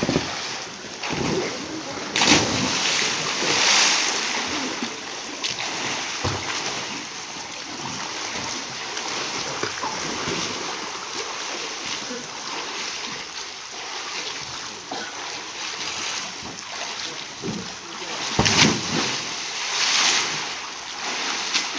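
Swimmers in life jackets kicking and splashing through pool water, with two louder stretches of splashing, one a couple of seconds in and one near the end.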